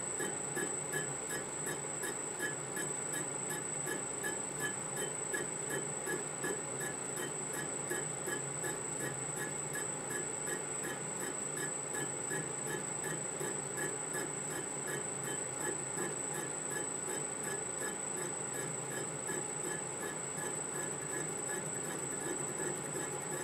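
Metal lathe running while turning a crankpin on a small model-engine crankshaft mounted off-centre in a turning fixture. A steady high-pitched whine runs under a fast, regular pulse from the spinning offset work.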